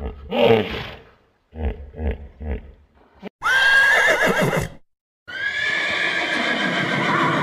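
Hippopotamuses giving a run of low grunting pulses, then horses whinnying twice: a short whinny around halfway and a long, louder one near the end.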